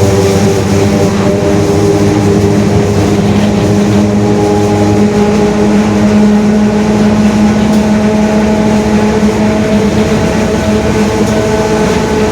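Mercedes-Benz OF-1721 city bus under way: its diesel drivetrain runs with the differential growling, a steady mix of several tones. A lower tone drops out about five seconds in, while the main tone grows stronger.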